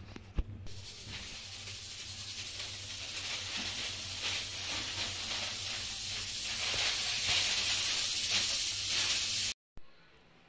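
A steady, high-pitched hiss that slowly grows louder, then cuts off suddenly near the end.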